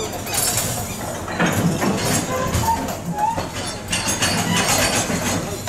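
Wooden passenger coaches of a steam train rolling past on jointed track, their wheels clattering with repeated clicks and knocks.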